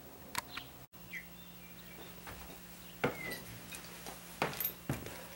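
A few sharp taps and clicks as a roll of weatherstripping and a hand work against a metal security screen door, the loudest about three seconds in and two more near the end, over faint bird chirps.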